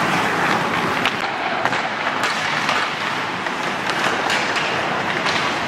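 Ice hockey skates scraping and gliding on the rink ice, a steady hiss, broken by several sharp clicks of sticks and puck.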